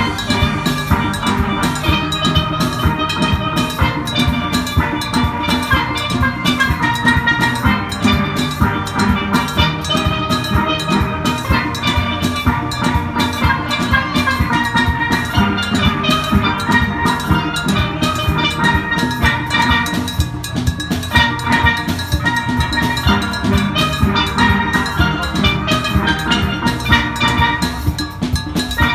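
Steel band playing a tune: steelpans striking a bright melody and chords over a steady drum beat.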